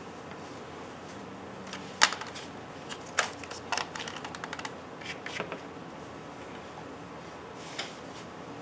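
Pastel sticks clicking and clacking against one another in their box as one is picked out. A sharp click comes about two seconds in, then a scatter of lighter clicks, and one more near the end.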